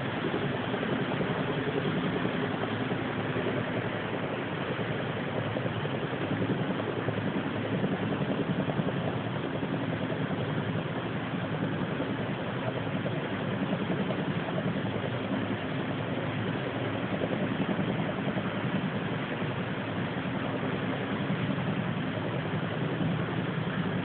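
A steady, unbroken low drone with a faint constant hum running through it, an unexplained background noise that the recorder likens to a helicopter.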